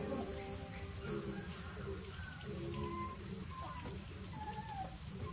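Steady high-pitched chorus of insects, with a few faint short gliding calls over it.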